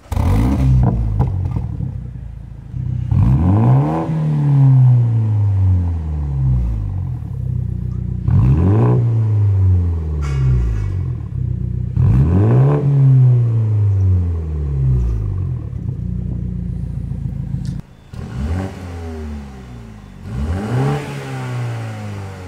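BMW M135i F40's 2.0-litre turbocharged four-cylinder revved through a Cobra Sport particulate-filter-back performance exhaust. Four sharp blips rise quickly and fall away slowly. In the last few seconds there are two quieter revs on the standard exhaust, for comparison.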